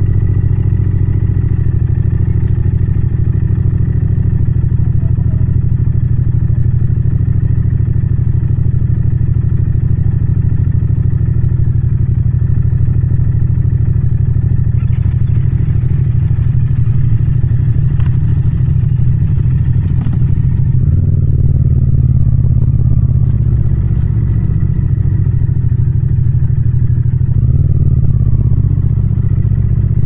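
Yamaha MT-07's 689 cc parallel-twin engine running steadily while riding. The engine note changes about two-thirds of the way in and again near the end, with a couple of light clicks in between.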